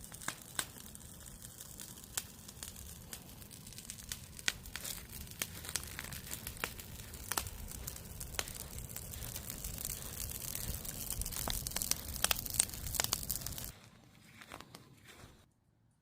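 Wood campfire burning, crackling with frequent sharp pops over a steady low hiss. It drops away about fourteen seconds in and stops shortly before the end.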